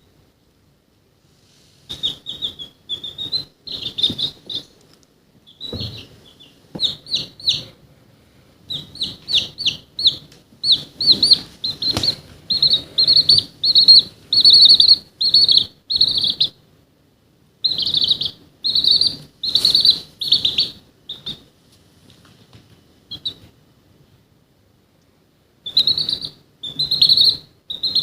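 Domestic chick peeping: runs of short, high cheeps, each dropping slightly in pitch, in bouts broken by pauses of one to several seconds.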